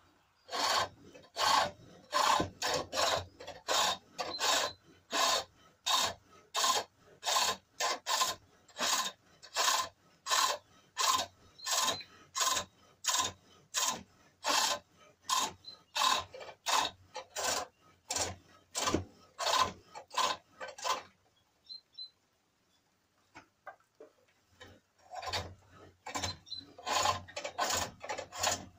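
Pole lathe turning a cherrywood bowl blank: a long cranked chisel scraping and cutting the face in rhythmic strokes, about two a second, cutting as the work spins toward the tool on each treadle stroke. The cutting stops for a few seconds a little after twenty seconds in, then starts again.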